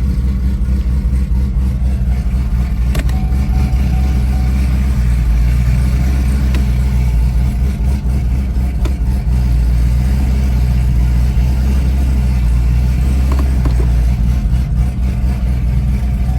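Chevrolet Camaro ZL1's supercharged V8 running steadily, a loud, even low drone from the engine and exhaust with no large swings in revs.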